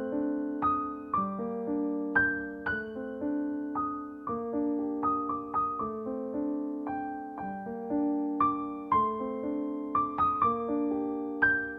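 Background piano music: notes and chords struck one after another, each ringing and fading.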